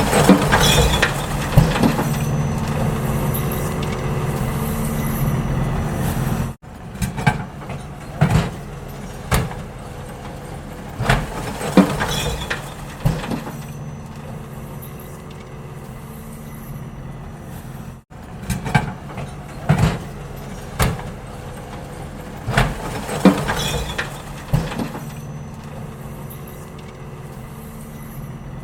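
Garbage truck engine running at a steady idle while trash is collected, with repeated sharp clanks and bangs. The sound breaks off abruptly twice and picks up again.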